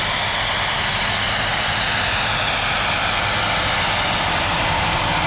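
John Deere quad-track tractor running steadily under load as it pulls a Horsch seed drill across the field, drawing nearer.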